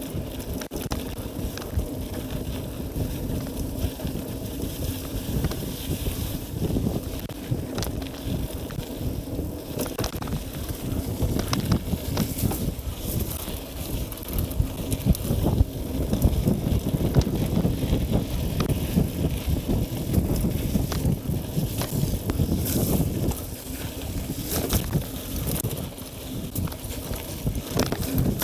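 Mountain bike riding over a rough dirt track: rumbling tyres and a rattling frame and parts, with frequent small knocks, and wind buffeting the microphone. It gets louder and rougher for several seconds past the middle.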